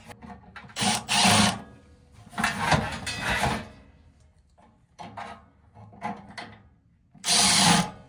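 Cordless power driver running in several short bursts, driving screws to fasten the mounting wings onto a new furnace blower motor. Fainter clicks and knocks of parts being handled come between the bursts.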